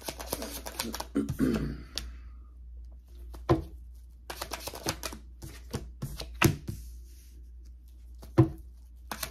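Tarot cards being shuffled by hand: quick runs of papery card clicks, broken by a few single sharp knocks.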